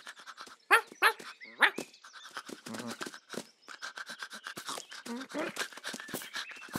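Cartoon dog vocal effects: three short, loud excited yips about a second in, then fast, rhythmic panting.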